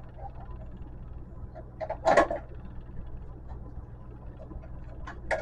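Wire cutters snipping through the light fixture's wires: a few sharp clicks and snaps, the loudest about two seconds in and another near the end, over a steady low hum.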